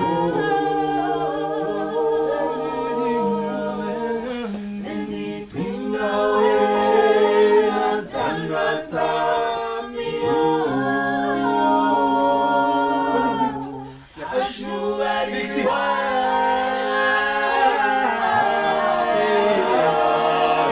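A small group of men and women singing a cappella in harmony, with a held low bass line under the melody. The singing breaks off briefly about two-thirds of the way through, then carries on.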